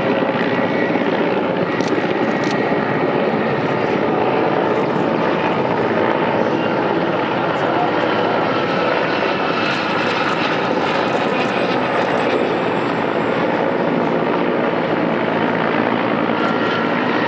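Mil Mi-8-family military transport helicopter flying low past, its main rotor and turbine engines giving a loud, steady noise.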